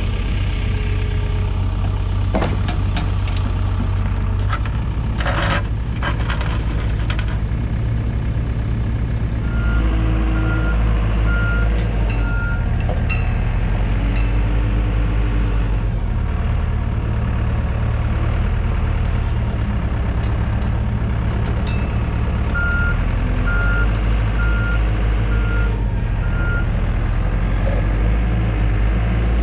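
Diesel engine of heavy equipment running steadily, with its note growing heavier about a third of the way through. A backup alarm beeps in two runs of about five beeps each, roughly 0.7 s apart. There are several knocks in the first seven seconds.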